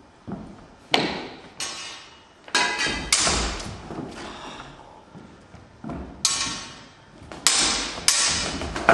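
Swords and bucklers striking each other in sparring: about ten sharp clashes in quick clusters, several ringing on briefly after the hit.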